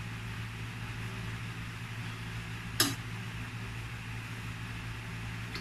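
Metal spoon scraping and clinking against metal as bacon fat is spooned out of a wok, with one sharp clink about three seconds in and a fainter one near the end, over a steady low hum.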